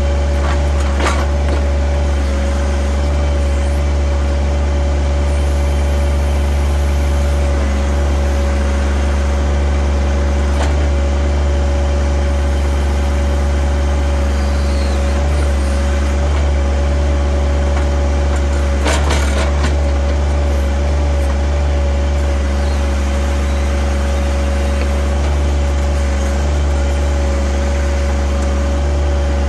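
John Deere compact tractor engine running at a steady speed while its backhoe is worked, with a steady whine over the low engine hum. There are a couple of brief knocks, one about a second in and another about two-thirds of the way through.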